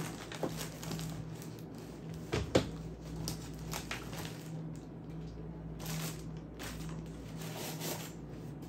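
Plastic packaging and wrapped pads rustling and crinkling as they are lifted out of a cardboard box, with one sharp knock about two and a half seconds in, over a steady low hum.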